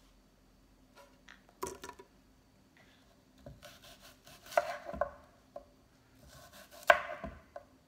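Kitchen knife slicing an apple on a wooden cutting board: the blade knocks on the board several times, with scraping between, and the sharpest knock comes near the end.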